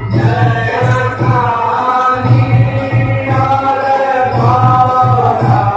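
Hindu devotional aarti sung as a chant, with musical accompaniment and a strong low accompaniment that comes and goes in stretches of about a second.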